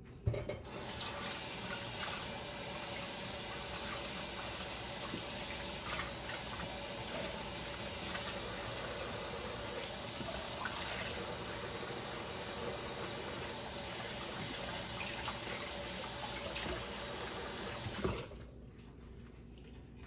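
Kitchen tap running steadily, water pouring into a sink, starting about a second in and shut off about two seconds before the end.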